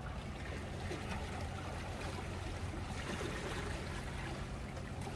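Small waves lapping and trickling against the rocks at the water's edge, an even wash of water sound with a steady low hum underneath.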